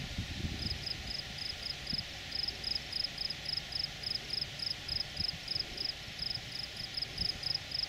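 Cricket chirping, about three to four short, high chirps a second, each of a few quick pulses, over a steady hiss with occasional low rumbles.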